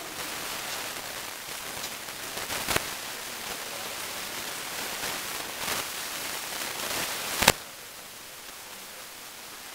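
Steady hiss with a few sharp knocks of rattan weapons striking shields and armour, the loudest about seven and a half seconds in.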